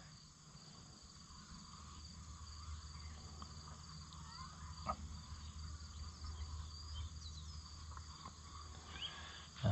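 Quiet background sound: a low steady hum under scattered faint, high chirps, with a single light click about five seconds in.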